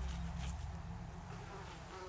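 Flies buzzing, over a low rumble that fades away after the first second or so.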